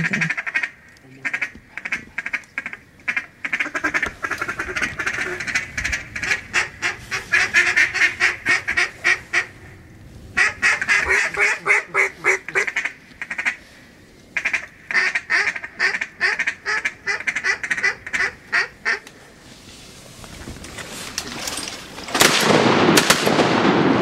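Ducks quacking in long, fast runs of evenly repeated quacks, three runs with short pauses between them. Near the end a loud, steady rush of noise takes over.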